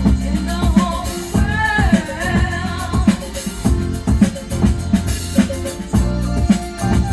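Disco-funk record playing from vinyl, with a steady drum-kit beat and bass and a brief sung line about a second and a half in.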